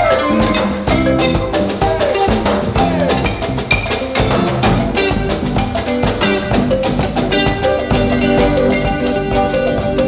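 Live African band music led by a balafon, a West African wooden xylophone with gourd resonators, playing quick runs of struck mallet notes over electric bass and drum kit.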